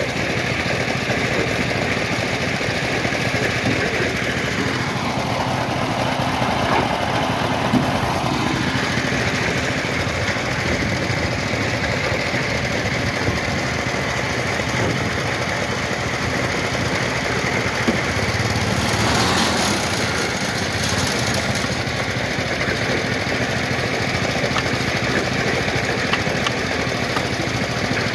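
Small engine of a concrete block-making machine running steadily, driving the machine through a belt. Two stretches of louder rushing noise come in about five and nineteen seconds in.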